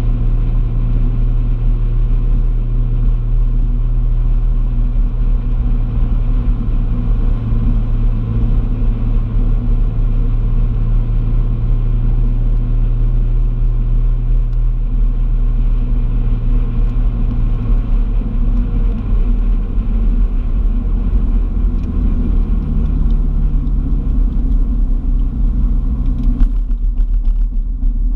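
A car driving along, its engine humming at a steady pitch for most of the stretch, then shifting up and down in pitch in the last several seconds.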